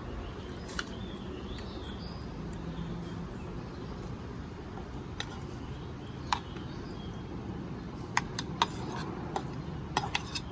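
Salad being tossed in a bowl: scattered light clicks and taps of a utensil against the bowl over a steady background hum.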